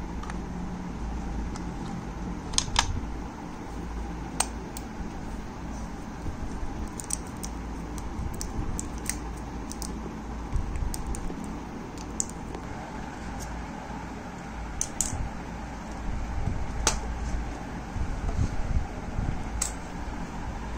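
Scattered small plastic clicks and taps, irregularly spaced, from handling a Dell KM5221W wireless mouse and keyboard, over a steady low background hum.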